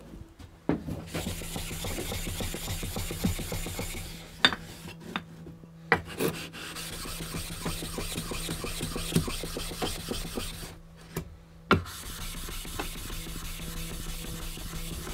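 A flattening stone rubbed back and forth across Japanese water stones, a steady gritty scraping in repeated strokes, truing the stones' dished faces. Three sharp knocks break in, with short pauses in the rubbing around the second and third.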